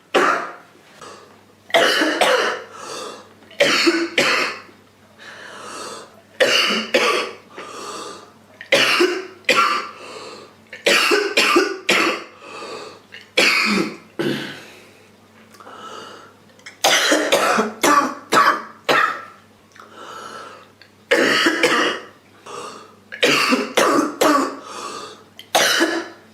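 A girl coughing over and over, in fits of two or three coughs with short pauses between them.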